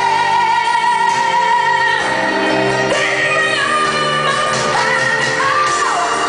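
A woman singing a ballad over backing music, holding long notes, one for about two seconds at the start.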